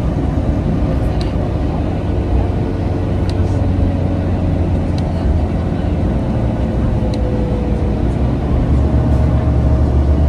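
Cabin sound of a 2011 New Flyer C40LF CNG city bus under way: a steady low rumble of the natural-gas engine and road noise, with a drivetrain whine that drifts down in pitch. Near the end a higher whine rises as the rumble grows louder, and there are a few light rattles.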